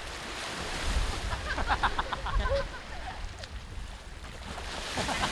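Small waves washing onto a sandy shore in shallow sea, with gusts of wind on the microphone. Faint voices of people in the water come through briefly about a second and a half in.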